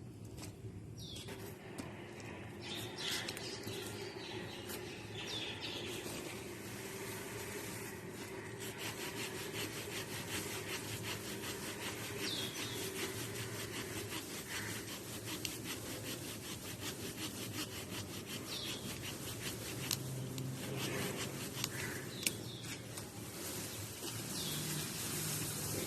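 Rapid, rhythmic rasping strokes of thick grass and debris being cleared by hand, with a few bird chirps over them.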